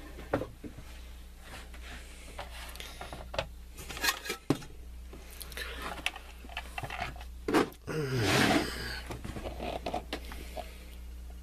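Handling noise as a stainless steel camp pot is lifted away and a kitchen scale is set down on a cutting mat: scattered clicks and knocks, then a longer scraping sound with a downward-sliding squeak about eight seconds in.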